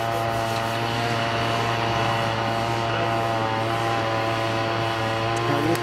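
A motor running steadily, holding one even pitch throughout.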